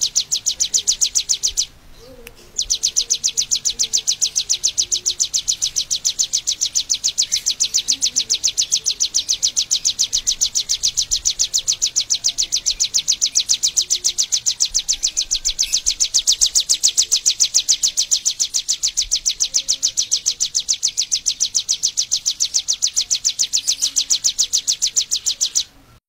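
Prinia singing a fast, even run of high, sharp notes repeated several times a second, kept up without change apart from one short break about two seconds in.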